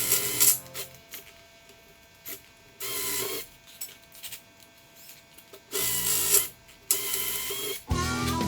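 Hand-tool work on a metal flywheel: four short scraping, ratcheting bursts with pauses between them. Music starts near the end.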